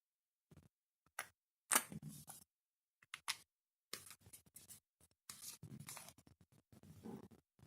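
Clear slime being worked by hand, making sharp sticky clicks and small pops. The loudest click comes about two seconds in, followed by a run of quieter, wet crackling.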